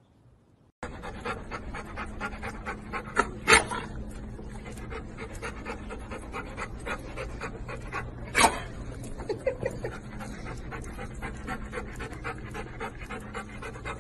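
Golden retriever panting rapidly and heavily right at the microphone, starting about a second in. Two sharp, loud knocks stand out, one about three and a half seconds in and one about eight and a half seconds in.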